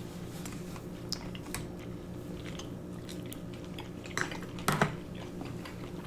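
Close-miked chewing of sushi, soft wet clicks of mouths at work, over a steady low hum. Twice, about four and about five seconds in, a sharper clack as bamboo chopsticks are set down on the metal serving tray.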